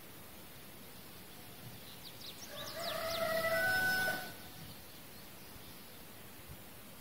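A rooster crowing once, about two seconds long, starting around two and a half seconds in, with a few quick high bird chirps alongside it over a steady background hiss.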